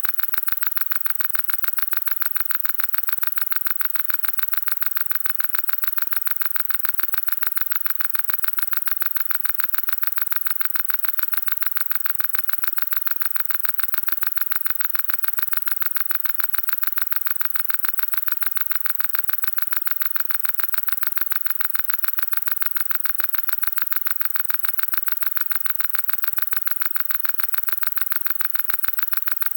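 Broken-machine sound effect: a harsh, hissing, static-like noise pulsing evenly several times a second, with no low rumble, unchanging throughout.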